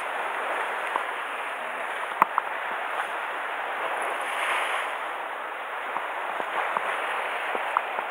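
Sea surf washing steadily against a rocky shore, with a few small sharp clicks, the loudest about two seconds in.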